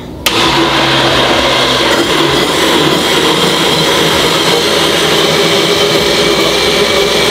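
A Philips countertop blender switches on abruptly and runs steadily at speed, blending a liquid mix of yoghurt and egg.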